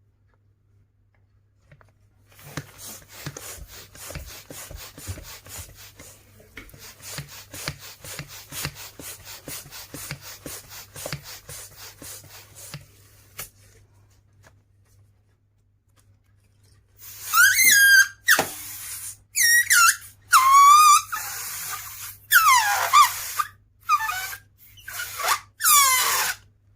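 Rubber balloons handled with a long run of quick, soft scratchy strokes, then squealing loudly in a series of wavering squeals that glide up and down in pitch, each breaking off sharply.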